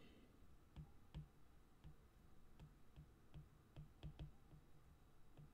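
Faint, irregular clicks of a stylus tip tapping on a tablet's glass screen during handwriting.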